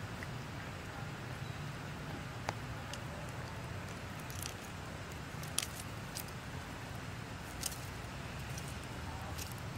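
Scattered small clicks and crackles as a macaque picks and peels the skin off a piece of food with its fingers, over a steady low rumble.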